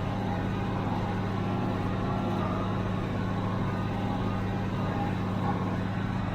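1976 International Harvester 886 diesel tractor running steadily with an even, unchanging low engine note while it pulls a John Deere 348 small square baler.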